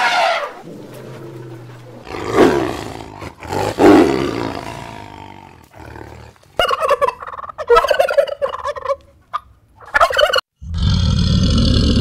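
A series of different animal calls cut one after another: loud calls falling in pitch in the first few seconds, then a quick choppy run of short calls, then a steady rough rumbling noise that starts near the end.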